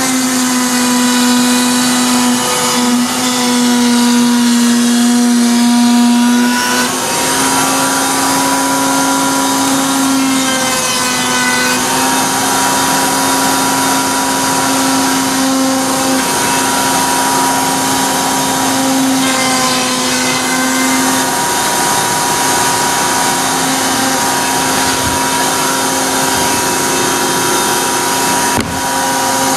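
Table-mounted router running at speed as its bit cuts along the edge of MDF panels: a steady motor whine that sags slightly in pitch as the bit takes up the cut.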